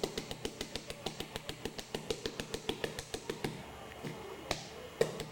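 A fast, even run of sharp clicks, about seven a second, that stops about three and a half seconds in, followed by two louder single clicks near the end.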